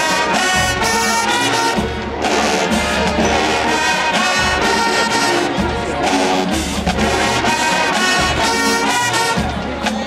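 Marching band playing loudly, brass-heavy, with trombones, trumpets and sousaphones carrying the tune over marching drums.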